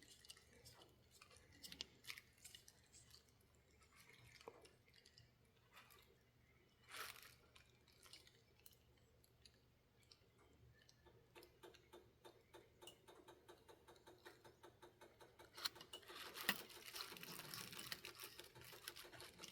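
Near silence broken by faint, scattered light clicks and small handling noises as the parts of an HO model locomotive are worked on by hand. In the second half the clicks come as a quicker run of small ticks, with a soft rustle near the end.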